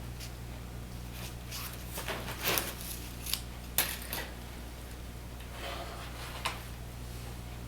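Scattered light clicks and rustles of hands handling a Hunter Douglas Duette shade's cord and parts during restringing, the sharpest clicks between about two and four seconds in and one more near the end, over a steady low hum.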